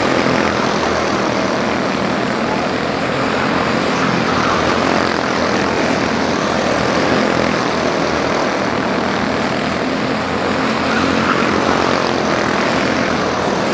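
A field of quarter midget race cars with small single-cylinder Honda four-stroke engines racing around a short oval: a steady, overlapping buzz of many small engines at speed.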